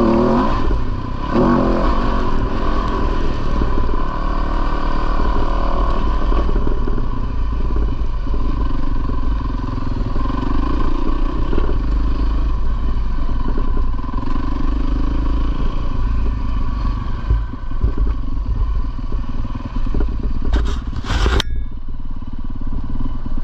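450cc four-stroke single-cylinder dirt bike engine running under way on a trail, its note rising and falling with the throttle. A few sharp knocks and clatter come near the end.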